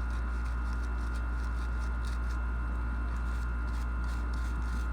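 Coarse plastic bristle brush scrubbing the inside parts of a shotgun receiver, faint short scratchy strokes a few times a second over a steady low hum.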